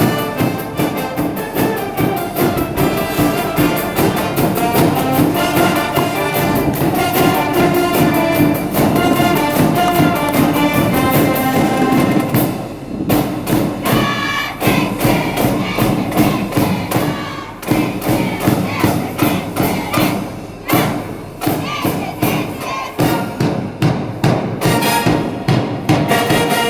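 High-school brass band playing a baseball cheering song live, with brass over a steady, heavy drum beat that stands out more in the second half.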